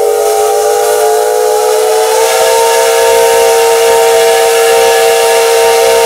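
Steam locomotive whistle blowing one long, loud blast, a chord of several tones over a rush of steam, lifting slightly in pitch about two seconds in. It is the departure signal for the train setting off.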